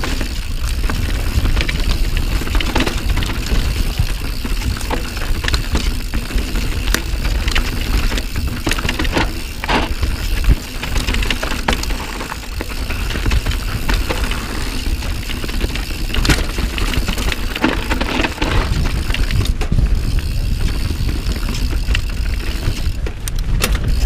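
Santa Cruz Nomad carbon mountain bike descending a dirt trail at speed: a steady wind rumble on the action camera's microphone, with tyre noise on dirt and the bike rattling and clacking over bumps.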